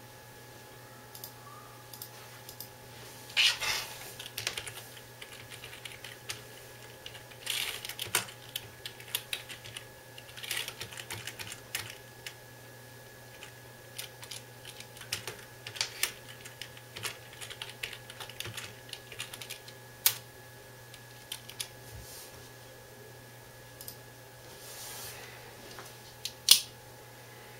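Typing on a computer keyboard: irregular runs of key clicks, over a faint steady hum. A single sharp click near the end is the loudest sound.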